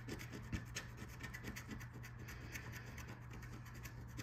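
A coin scratching the coating off a lottery scratch-off ticket in quick, rasping strokes, fewer and fainter in the second half.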